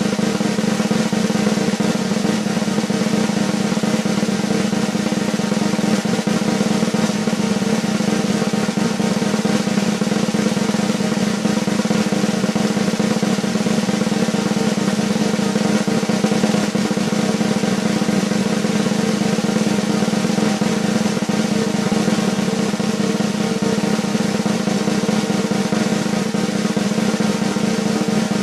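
Continuous snare drum roll, a fast even buzz of strokes held at a steady level without a break or a closing hit.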